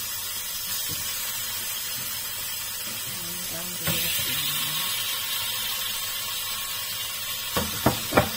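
Salmon pieces sizzling in butter in a non-stick frying pan as they are laid in. The sizzle grows louder after a soft knock about four seconds in, and three sharp clicks come near the end.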